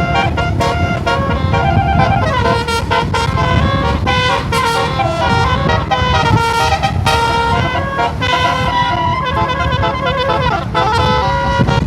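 Bus telolet horn, a set of multi-tone air horns, playing a tune of stepped, held notes over the low rumble of the bus.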